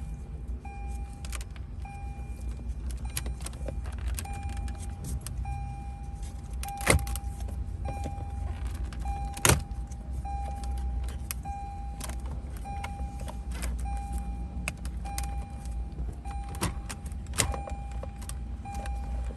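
A car's warning chime beeping steadily about once a second over a low hum, while the dashboard radio unit is pulled out: small plastic clicks and rattles, with two loud sharp snaps about seven and nine and a half seconds in as the trim clips let go.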